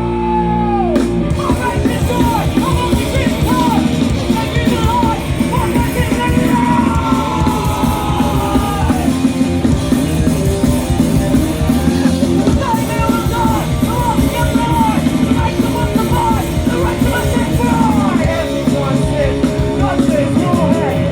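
Live punk band playing loud and fast: fast drumming, guitars and shouted vocals, recorded from the crowd.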